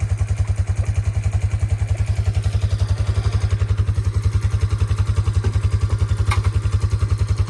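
Small engine idling steadily, an even, fast low throb.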